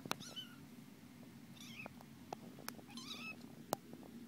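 Young kitten mewing: three short, high mews about a second and a half apart, with a few sharp clicks among them, the loudest just at the start and near the end.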